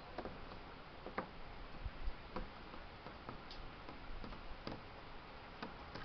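Faint, irregular light clicks and ticks, roughly one a second, over a low steady hiss.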